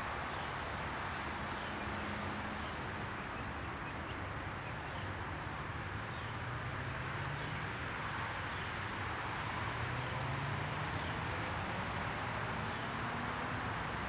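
Small songbirds giving short, very high, thin call notes now and then, over a steady background hiss and a faint low drone that slowly rises and falls.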